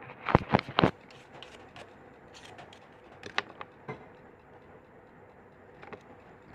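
Small sharp clicks and taps of a phone being worked on by hand: three quick clicks in the first second, then a few fainter ones spread out.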